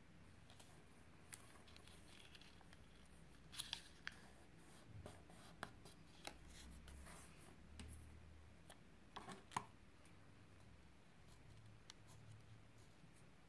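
Faint handling of a sheet of origami paper: soft rustles and a scatter of sharp paper crackles and clicks as it is folded, creased and opened out again by hand.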